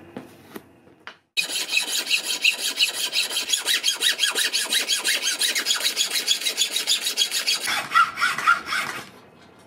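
Hacksaw blade cutting through a piece of antler clamped in a bench vise, in rapid back-and-forth strokes. It starts about a second and a half in and stops about nine seconds in.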